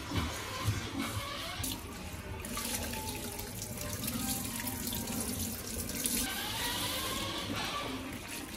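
Kitchen tap running, its water splashing onto a carbon steel frying pan and into a stainless steel sink as the pan is rinsed.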